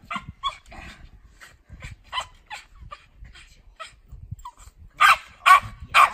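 Cairn terrier giving short, sharp yips, then loud barks about twice a second near the end.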